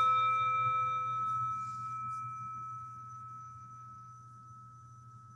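A struck meditation bell ringing out and slowly fading. Its higher overtones die away within the first two seconds, leaving one clear tone that grows faint near the end.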